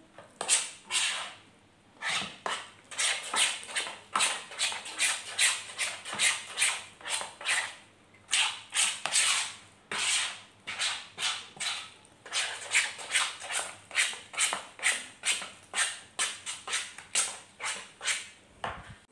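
Sticky chicken meatball dough, thick with tapioca flour, being mixed in a plastic bowl: rhythmic squelching, scraping strokes about two a second, with a couple of short pauses.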